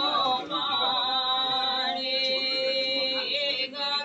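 Voices chanting in long, drawn-out held notes, a ritual chant sung during a Hindu wedding puja.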